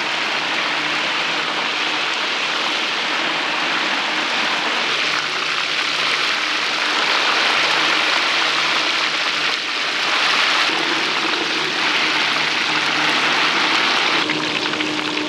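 Blocks of stinky tofu deep-frying in a wok of hot oil: a loud, dense sizzling hiss, growing a little louder about halfway through.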